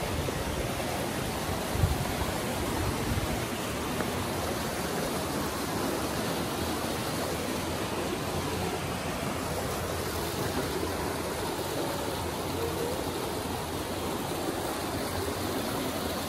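Shallow rocky river flowing over stones: a steady, even rush of running water, with a brief low thump about two seconds in.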